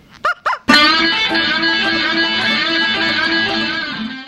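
Two short squeaky sounds, then an electric guitar chord struck once. The chord rings on for over three seconds, fading slowly.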